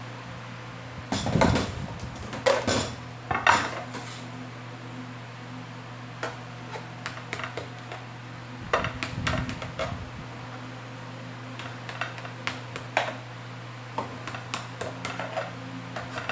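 Metal kitchen utensils clattering as they are picked up from a counter, then a knife tapping and scraping against an aluminium baking pan in scattered short clicks while cutting a cake in the pan.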